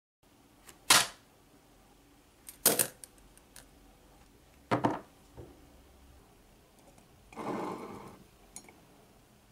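Small objects being set down on a wooden desk: three sharp knocks, then near the end a longer rattling scrape as a mug full of wooden pencils is put down.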